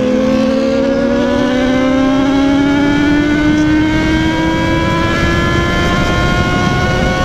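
Yamaha XJ6's inline-four engine pulling hard under acceleration, its pitch rising steadily without a gear change, heard from the rider's seat over a low rush of wind and road noise.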